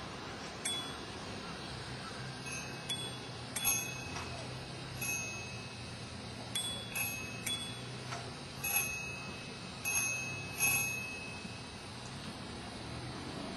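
Small high-pitched bells being played, struck one at a time in a slow, irregular sequence: about a dozen strokes on a few different notes, each ringing on briefly before fading.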